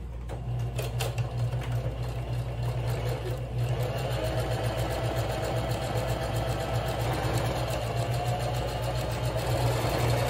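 Sewing machine stitching a seam: the motor runs steadily under a rapid patter of needle strokes. It starts about half a second in, grows louder about four seconds in, and stops near the end.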